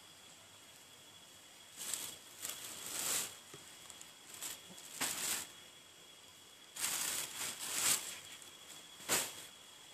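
Several short bursts of rustling, the loudest near the middle and end, over a steady high drone of night insects.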